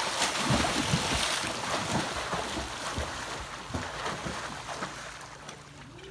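Swimmers kicking and stroking hard across a pool, churning up splashing water. The splashing is loudest in the first second or two and dies down toward the end.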